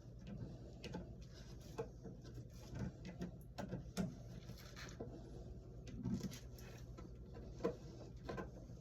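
Faint, scattered clicks and taps from handling a wall light switch and its wires, struggling to free a stuck wire from the terminal.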